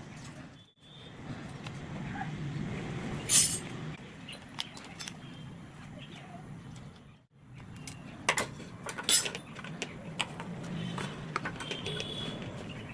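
Small plastic and metal parts clicking and clinking as a mosquito machine is handled and taken apart, over a steady low hum. The sharpest clicks come about three seconds in and again twice about eight to nine seconds in.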